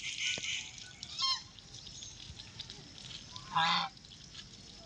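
White call duck quacking: a few short, loud, nasal quacks, the strongest about three and a half seconds in.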